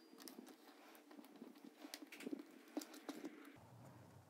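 Faint light taps and paper handling: fingers picking a small die-cut cardstock piece out of its scrap and pressing it onto a paper treat box, with a scatter of small ticks.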